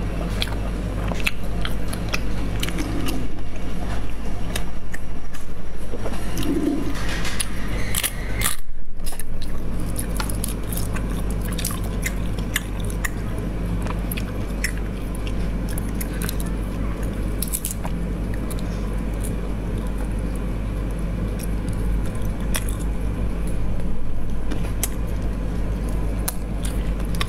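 Close-miked eating sounds: sucking, chewing and lip smacks as meat is drawn out of braised snail shells, with many small wet clicks, over a steady low hum. The sound cuts out briefly a little before nine seconds in.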